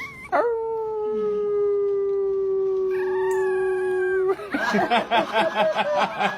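A dog howling: one long steady note held for about four seconds, then a quick warbling run of short wavering notes, about five a second, near the end.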